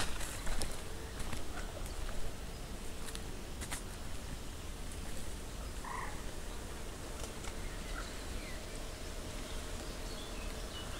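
Frogs croaking, with a short call standing out about six seconds in. A few rustling footsteps are louder in the first second.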